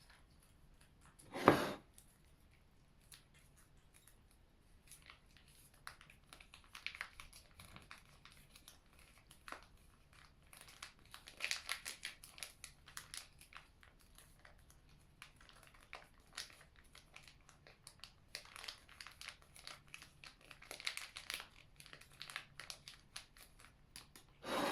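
Packaging crinkling and rustling in short irregular bouts as it is handled, with one sharp knock about a second and a half in.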